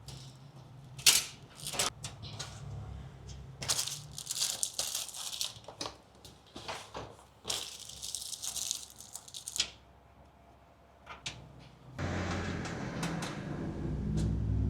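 Computer parts being handled during assembly: scattered clicks and small knocks with stretches of hiss, over a low hum that drops out about six seconds in and comes back louder near the end.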